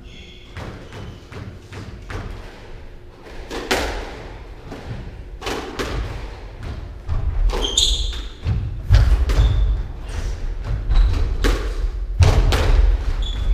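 Squash rally: the ball repeatedly smacking off rackets and the court walls, mixed with heavy thuds of footfalls on the wooden court floor and a few short, high squeaks of shoes. The thuds and hits get louder and more frequent in the second half.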